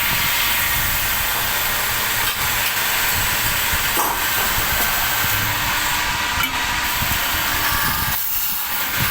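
NC lathe running while machining an aluminium motor body: a steady hiss over a low rumble, the hiss easing briefly near the end.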